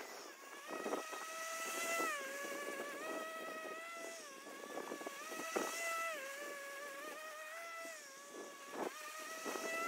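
Battery-powered PowerSmart 40V push mower's electric motor and blade whining while cutting grass, played back sped up so the whine is high-pitched. Its pitch sags and recovers a few times as the load changes, with scattered faint ticks.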